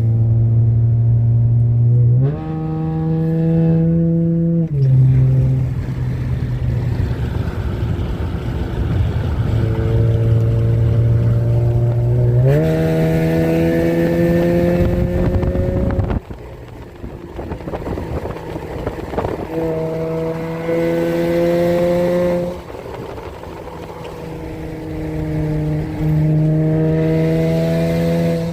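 Dodge Challenger engine breathing through a newly fitted Spectre cold air intake while driving, heard inside the car: a steady drone that climbs slowly in pitch under throttle and steps up and down several times as revs and load change. It drops off sharply about halfway through when the throttle is eased, then picks up again near the end.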